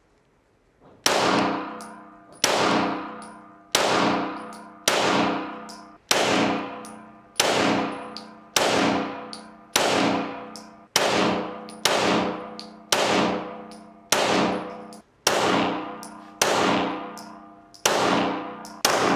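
A Glock 34 9mm pistol fired in slow, even succession: about sixteen shots a little over a second apart, starting about a second in. Each shot is followed by a ringing clang that fades away before the next.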